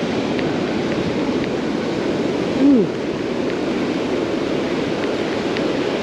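Ocean surf washing up the beach at the water's edge, a steady rush of breaking waves and foam. About two and a half seconds in, a brief low vocal sound falls in pitch.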